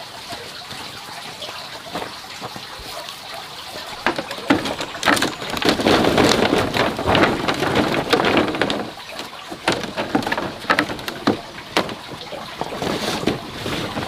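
Fresh ginger rhizomes tipped from a woven bamboo basket onto a bamboo-slat floor: a dense rattling clatter begins about four seconds in and is loudest a couple of seconds later, then thins to scattered knocks as the rhizomes settle and are spread by hand.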